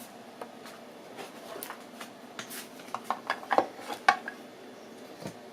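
A USB cable being handled and its plugs fitted: scattered small clicks and rustles, with a few sharper clicks about three to four seconds in.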